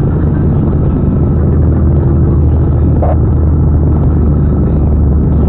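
A vehicle's engine and road noise: a steady low hum that holds the same pitch throughout.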